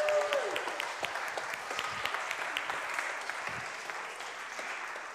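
A congregation applauding, many hands clapping at once, the applause slowly dying away.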